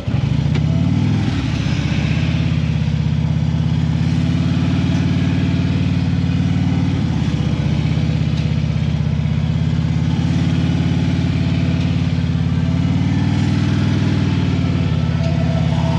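2015 Harley-Davidson Ultra Limited's Twin Cam 103 V-twin engine running at low revs with a steady pulsing beat, as in slow-speed riding. The revs swell and settle slightly about a second in and again near the end.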